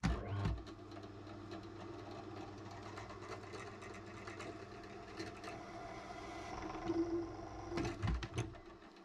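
Bench drill press switched on and running, its M8 counterboring bit cutting into a steel bar, with a steady motor hum and the scrape of the cut. A few louder knocks come near the end, then the sound drops away.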